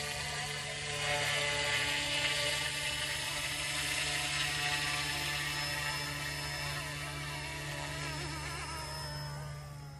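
Goosky S2 small electric RC helicopter flying: the steady whir of its motor and spinning rotor, with the pitch wavering up and down, getting a little quieter near the end.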